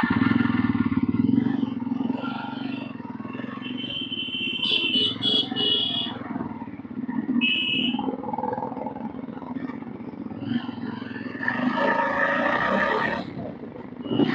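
Yezdi Roadster's 334 cc single-cylinder engine and exhaust running steadily under way, heard from the rider's seat, with brief high-pitched tones about four to six seconds in and again near eight seconds, and a louder stretch of mid-range sound about eleven to thirteen seconds in.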